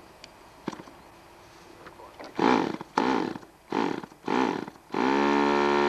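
Hand-held electric starter spinning a model airplane's glow-plug engine: four short bursts about two seconds in, each rising and falling in pitch, then a steady whir from about five seconds in.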